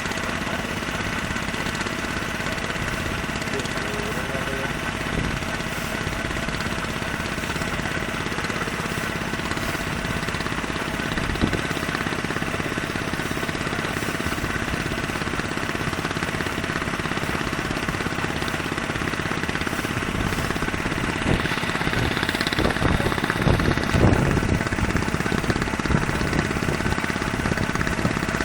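Boat engine running steadily with a rapid knocking beat, growing a little louder with a few thumps near the end.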